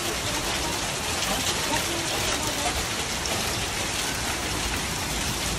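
Steady downpour of rain falling onto a flooded street and lawn, an even, unbroken hiss.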